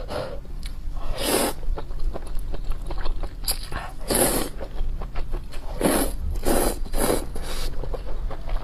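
Close-miked slurping of noodles from a spicy soup: about five slurps, the longest about a second in and about four seconds in, the rest shorter and closer together near the end.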